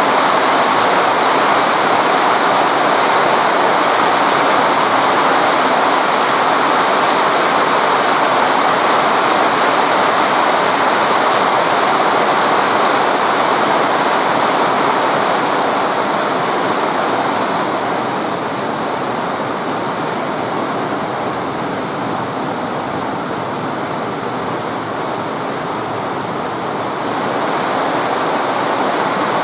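Very heavy rain pouring down in a steady hiss, easing slightly for a while past the middle before picking up again near the end.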